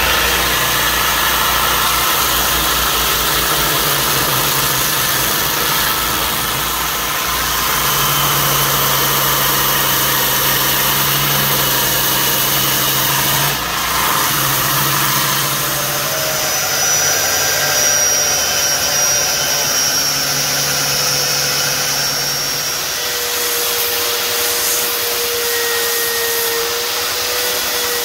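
Bench belt sander running steadily while a knife's wooden handle is ground against the belt. Near the end the machine note changes as the sanding moves to a spinning sanding disc.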